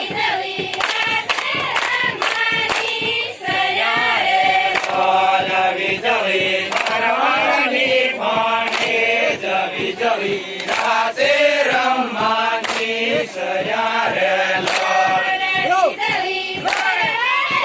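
A crowd of villagers chanting and singing together, many voices overlapping, with sharp clicks or claps scattered through.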